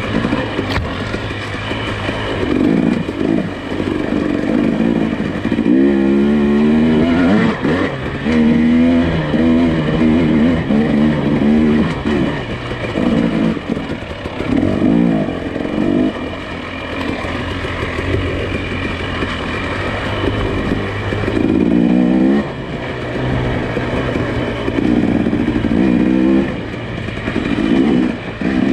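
Nissan Pathfinder engine working over a rough off-road trail, revving up and easing off again and again every few seconds.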